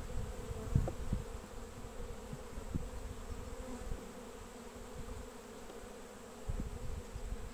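Honeybees humming steadily over an open hive, with a few short low thumps as the wooden hive frames are shifted and one is lifted out.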